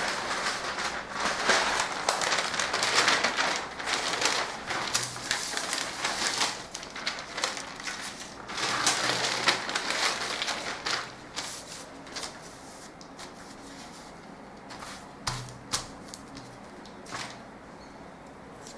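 Brown pattern paper rustling and crinkling as large sheets are handled and laid over cut pattern pieces. The rustle is dense for about the first twelve seconds, then gives way to a few short taps.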